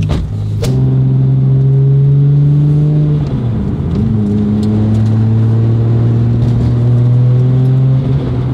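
Toyota Supra MK4's turbocharged 2JZ inline-six running under throttle while driving, its note rising slowly, with a gear change about three seconds in.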